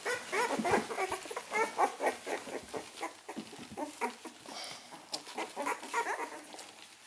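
Newborn Hovawart puppies, about eleven days old, squeaking and whimpering as they jostle at their mother's teats to nurse: many short, high, bending squeaks, several a second, with small clicks among them, thinning out toward the end.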